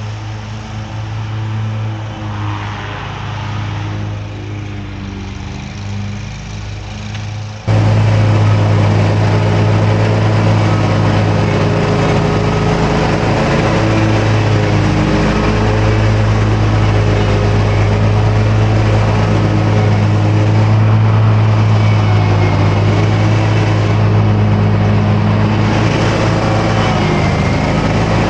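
Engine of a Wright commercial stand-on mower running steadily during mowing. About eight seconds in it abruptly becomes louder and fuller, then holds steady.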